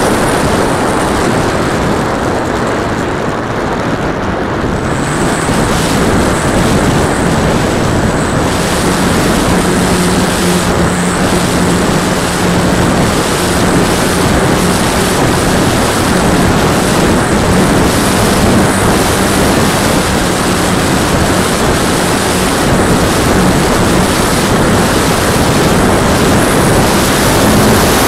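Wind rushing over the microphone of a camera mounted on a radio-controlled plane in flight, mixed with the propeller's steady drone. A low steady hum comes in about a third of the way through.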